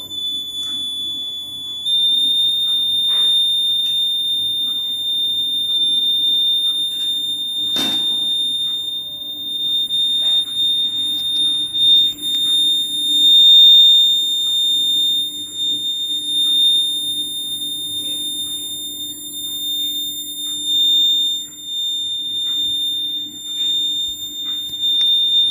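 Piezo buzzer of a 9-volt rain-alarm circuit sounding one continuous high-pitched tone, set off by water bridging the razor-blade rain sensor. The pitch steps up slightly about two seconds in, and a single knock is heard about eight seconds in.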